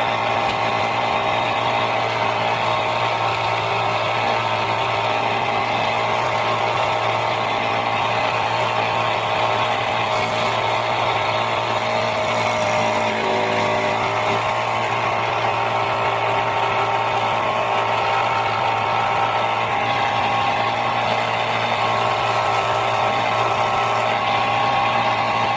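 Electric jigsaw running steadily while cutting wood, a constant motor hum with a whine over it.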